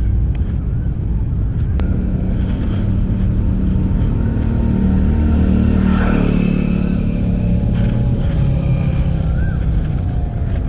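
Road traffic: motor-vehicle engines and tyres rumbling steadily as vehicles pass close by, loudest about halfway through.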